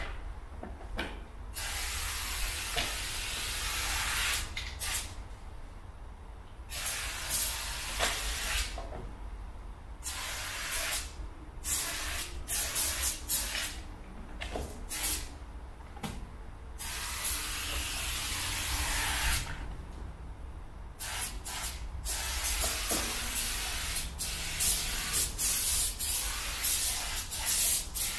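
Aerosol spray paint can hissing against a wall in bursts, some long sprays of a couple of seconds and, near the end, many short quick ones, with pauses between. A low steady rumble runs underneath.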